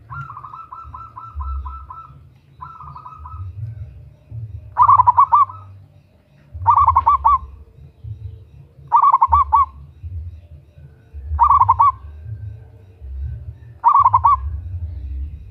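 Zebra dove (perkutut) cooing: a quick run of rapid staccato notes, a shorter run, then five short trilled coos about two seconds apart, over a low rumble.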